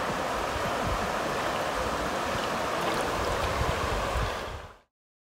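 Steady rush of flowing river water, with an uneven low rumble underneath. It cuts off suddenly near the end.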